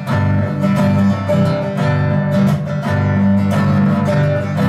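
Instrumental break in a slow song: acoustic guitar strumming chords.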